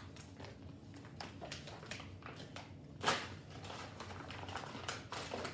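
Rustling and small clicks of MRE ration pouches and packets being handled, with one louder crinkle about three seconds in.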